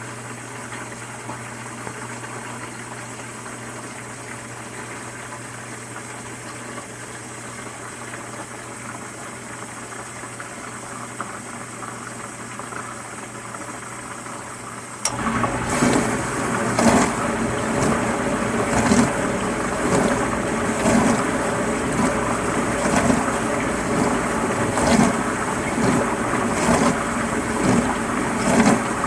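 Dishwasher running: a steady hum and water sound, then about halfway through its wash pump starts and water sprays and sloshes inside the tub, louder, with a surge about every two seconds.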